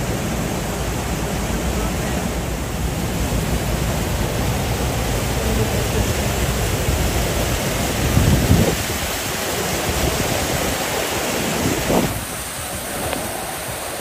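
Fast, muddy stream rushing over a rocky cascade just below a footbridge: a steady, loud roar of water. Brief low surges about eight and twelve seconds in, likely wind on the microphone, and the low rumble eases after the second one.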